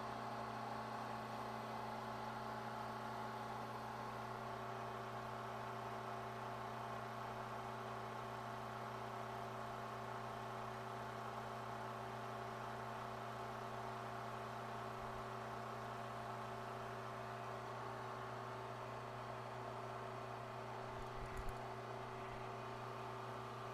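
Bridgeport milling machine running steadily with an even hum while its spindle turns a boring bar with a high-speed steel bit, cutting out the plastic core of a Scotch-Brite deburring wheel to enlarge its bore. A brief knock near the end.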